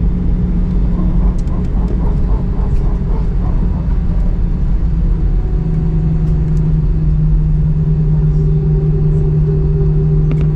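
Airbus A319 cabin noise heard from a window seat beside the engine: a steady jet engine and airframe rumble as the airliner rolls along the ground after landing. The engine hum steps slightly down in pitch about halfway through.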